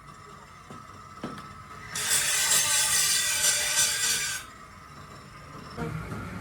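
A tool scraping or rasping on metal for about two and a half seconds in the middle, after a couple of light knocks.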